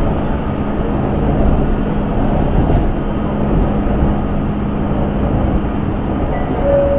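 Shanghai Metro 07A02-type electric train heard from on board while standing still: a steady low rumble from its running equipment, with a steady hum that fades out near the end. A short high tone begins just before the end.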